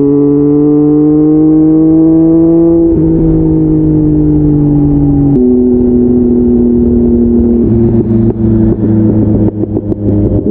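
Triumph Speed Triple's three-cylinder engine running under way, heard from the rider's seat. Its note climbs steadily for about three seconds, then steps down in pitch three times. Near the end it breaks up into uneven crackles and dips.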